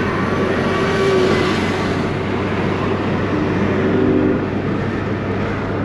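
A car running, with a steady engine hum and road noise.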